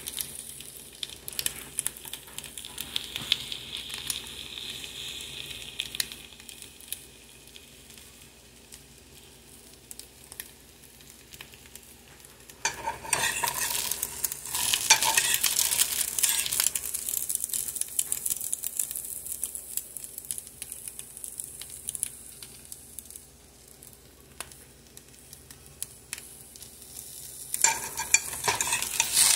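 Food sizzling in a hot frying pan as it is stirred. The sizzle flares louder with stirring clatter about thirteen seconds in and again near the end.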